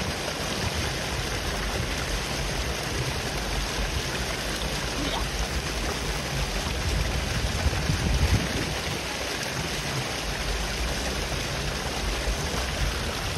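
Steady rushing of flowing river water, with a low rumble swelling twice, about halfway through and near the end.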